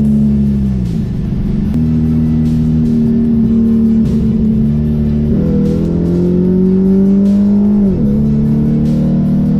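Background music over a car engine running on the move.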